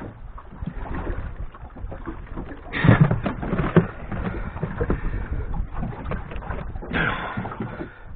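Knocks, clicks and rustling from a fish being handled and unhooked by hand in a small boat, with two louder scuffles, about three seconds in and again near the end.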